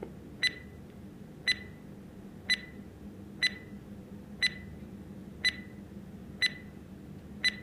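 Quiz countdown-timer sound effect: a short, high tick-beep once a second, eight in all, over a faint steady low hum.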